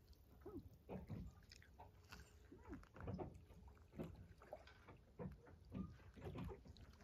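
Faint, soft lapping of small waves at the edge of a calm lake, a gentle splash roughly once a second.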